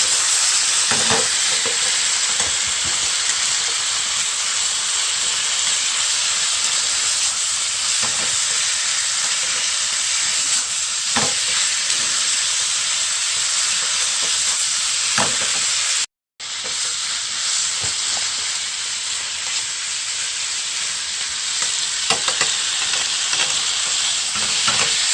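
Food sizzling as it fries in a pan and is stirred, a steady loud hiss with a few light knocks. The sound drops out for a moment about 16 seconds in.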